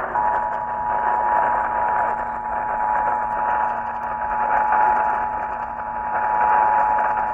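Emergency Alert System two-tone attention signal: two high notes sounding together, steady and unbroken, heard through radio reception with a heavy static hiss.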